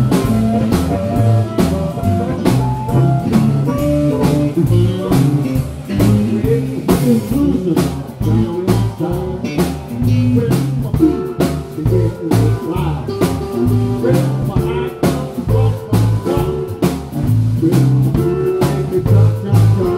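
Live blues band playing: electric guitars, bass and drum kit, with the drums keeping a steady beat.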